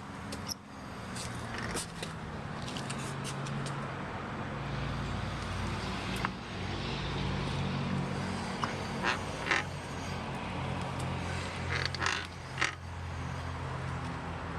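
Geo Metro wheel squeaking and creaking as the car rolls slowly, short squeaks coming in clusters, like a wooden rocking chair, over a steady low hum. The owner suspects the axles or brakes.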